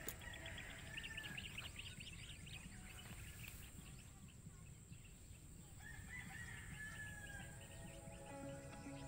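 A rooster crowing twice, once about a second in and again about six seconds in, faint and distant; background music returns near the end.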